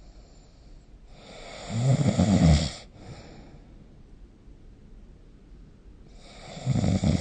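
A sleeping person snoring: one loud snore about two seconds in, and the next starting near the end, with only faint background hiss between them.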